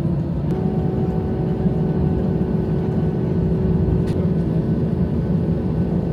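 Airbus A320 cabin noise while taxiing: a steady low rumble of the airliner's engines and airframe. About half a second in, a steady hum joins it.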